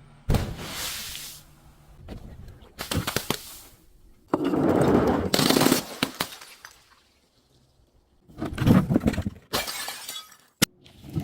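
Glass breaking and crunching in several separate bursts, the longest and loudest midway, with a single sharp snap near the end.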